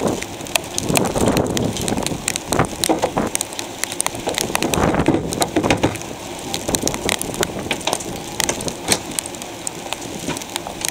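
Stormy wind and rain at a marina: a gusting, rushing noise that swells and fades, with many irregular sharp clicks and knocks throughout.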